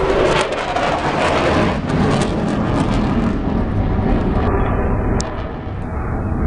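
Airplane flying past, its engine noise loud and steady.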